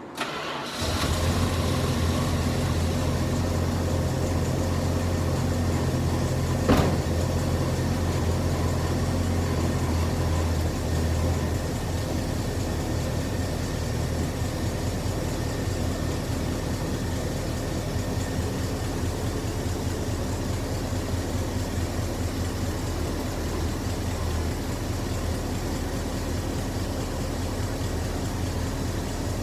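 Dodge Charger's 318 V8 engine running at idle, coming in suddenly near the start and settling slightly lower about 11 seconds in. A single sharp click sounds about 7 seconds in.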